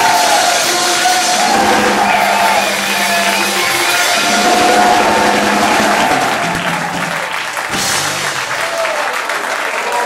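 Rock band playing the closing bars of a live song, with drums, upright bass and long held notes, as the audience cheers and claps; the music eases off after about six seconds and applause carries on.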